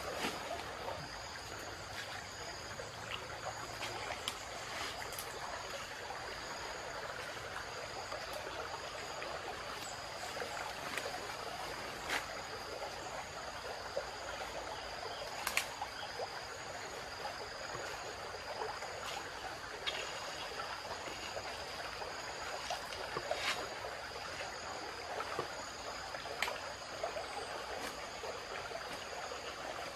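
Shallow river flowing over stones, a steady rushing and trickling, with insects shrilling steadily on two high pitches. A few sharp clicks cut through now and then, the loudest about halfway through.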